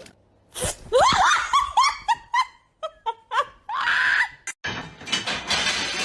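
A person laughing in a quick run of short, high-pitched bursts, about half a dozen in a second and a half, then a long shrill scream a couple of seconds later.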